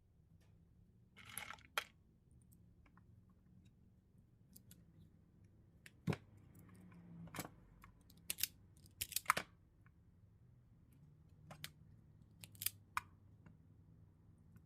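Hand tools snipping and clicking on car-radio wiring, typical of wire strippers cutting and stripping wire insulation: scattered sharp snips, several in quick succession around the middle, with a short rustle about a second in.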